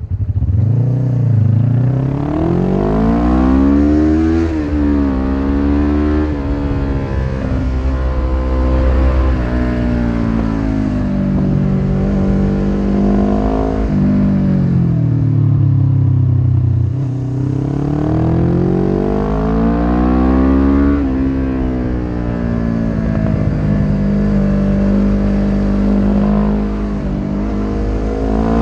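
1993 Suzuki GS500E's air-cooled parallel-twin engine through a Takkoni slip-on exhaust with its dB-killer fitted, heard from the rider's seat while riding hard. Its pitch repeatedly climbs and drops back at each gear change, falls away on engine braking about halfway through, then pulls up through the gears again.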